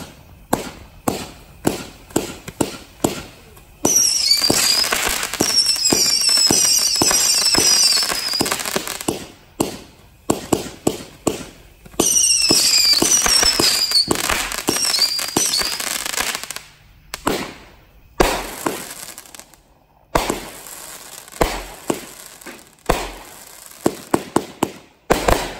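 Brothers Fireworks 'Trouble' 36-shot, 200-gram consumer cake firing. A quick run of launch shots is followed by two long stretches, about 4 s and 12 s in, of dense crackling laced with many short falling whistles. Spaced single shots and bangs with crackle follow in the second half.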